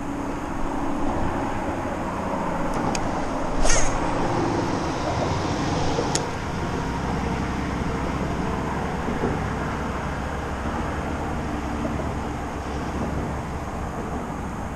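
A boat motor running steadily as the bass boat moves, with one brief sharp clatter about four seconds in.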